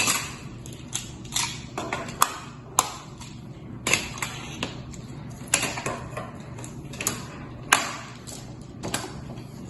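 Plastic magnetic building tiles clicking and clacking irregularly as they are handled and snapped together.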